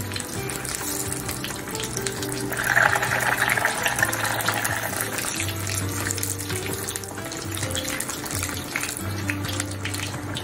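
Potato-starch-coated tofu cubes deep-frying in a small pot of oil: a steady, crackling sizzle, more vigorous for a couple of seconds near the start. Background music with a steady bass line plays over it.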